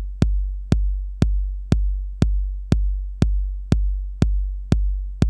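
Roland TR-808 bass drum from the Roland Cloud TR-808 plugin, playing alone in a steady pattern at two hits a second. Each hit is a sharp click followed by a long, deep boom that rings on until the next hit, with the drum's tone knob turned up high to brighten the attack.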